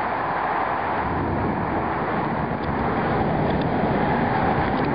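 Heavy thunderstorm rain falling, a steady even hiss.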